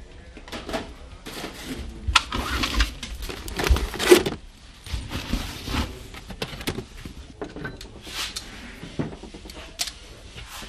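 Tools and parts being rummaged through in plastic bins and cases on shelves: irregular clatter, knocks and rustling of metal and plastic, the loudest knocks about two and four seconds in.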